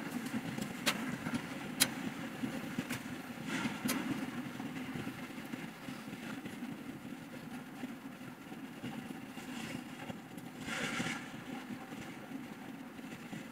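Sharp clicks of small plastic clips being handled and fitted onto the crossbar of a white steel tube stand, several in the first four seconds, with a brief scrape near the end. A steady low hum runs underneath.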